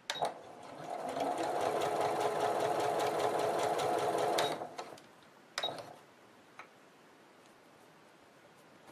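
Electric sewing machine stitching: it clicks and picks up speed over about a second, runs steadily for about three seconds, then stops, with another sharp click about a second later.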